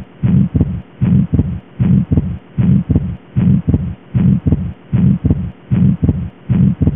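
Auscultated heart sounds of an atrial septal defect: each beat is a first heart sound, a systolic murmur, then a split second heart sound (fixed splitting), repeating evenly at about 75 beats a minute.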